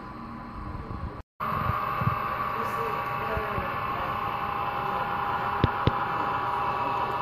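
HO scale model freight train running along the track with a steady whirring hum, and two sharp clicks in quick succession near the end. The sound drops out completely for a moment about a second in.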